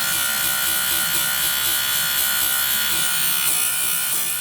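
Electric chainsaw-chain sharpener running steadily, its grinding wheel on the chain's cutter teeth with a continuous high hiss over a steady motor tone.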